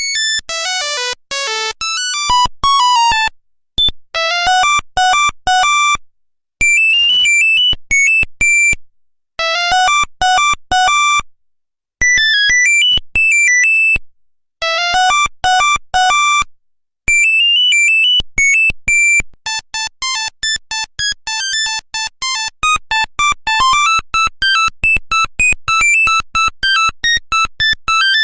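Nokia 1100 monophonic ringtones: beeping melodies played one note at a time in short phrases with brief pauses between them. About two-thirds of the way in, a different, faster tune of quick short notes begins.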